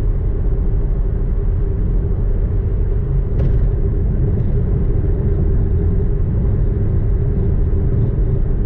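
Steady road and engine noise inside a moving car's cabin: a deep, even rumble with a steady hum on top, and a faint click about three and a half seconds in.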